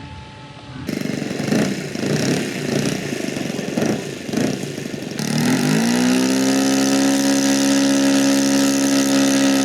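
RC model plane's four-stroke engine, first running unevenly with the throttle going up and down. From about halfway it climbs to a steady high-revving note and holds it, a four-stroke sound like a lawn tractor's Briggs & Stratton.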